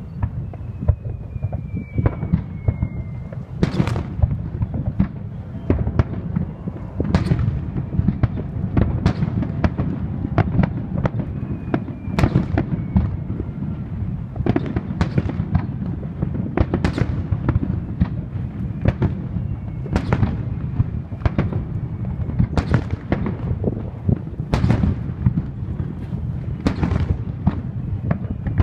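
Aerial fireworks shells bursting in quick succession, a sharp bang every second or two over a continuous deep rumble of booms rolling over the water.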